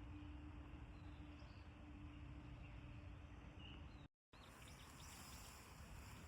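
Faint outdoor ambience with a few short, soft bird chirps. A faint steady hum lies under it and stops at a cut about four seconds in.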